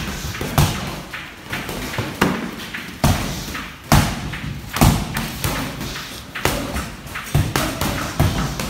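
Padded boxing gloves thudding on gloves, arms and headgear in sparring: irregular sharp thuds, roughly one or two a second, some in quick pairs.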